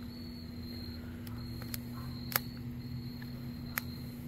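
Crickets trilling in short repeated bursts over a steady low hum, with a sharp click about two seconds in and another near the end.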